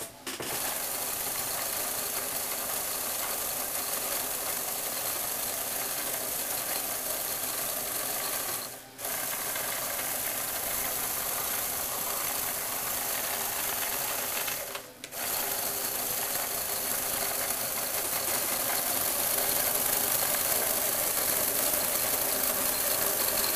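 Small Lego Technic electric motor and its plastic gearing running steadily with a whirring, driving a wheeled carriage along a long rod. The motor stops briefly twice, about nine and fifteen seconds in, then runs on.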